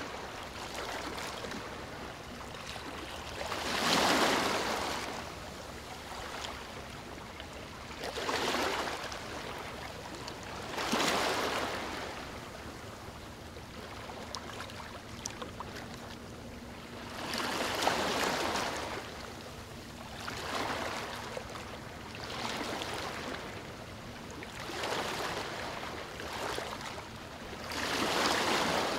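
Ocean waves washing in, a steady hiss of surf that swells into a louder rush every few seconds.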